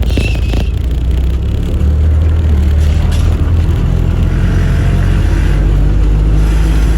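Fiat Cinquecento's engine running with a loud, steady low hum. A few clicks and a short high squeal sound right at the start.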